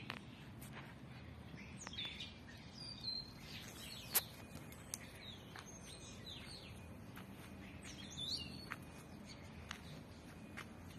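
Small birds chirping in short high calls, in clusters, over a faint background hiss. A few sharp clicks are mixed in, the loudest about four seconds in.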